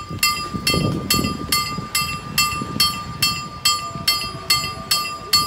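Level-crossing warning bell striking steadily at about two strikes a second, each strike ringing on, warning that a train is approaching the crossing.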